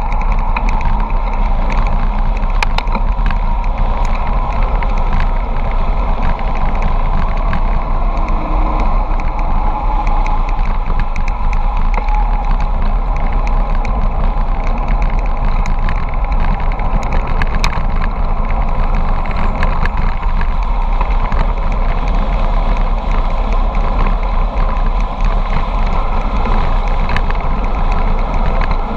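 Steady loud rush of wind over the camera's microphone with tyre noise on asphalt from a bicycle descending a mountain road at speed, with scattered small clicks.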